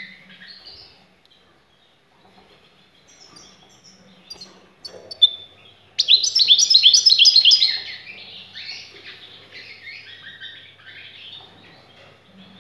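European goldfinch singing: a few faint chirps, then about six seconds in a loud run of rapid, high twittering notes lasting about two seconds, which trails off into softer twittering.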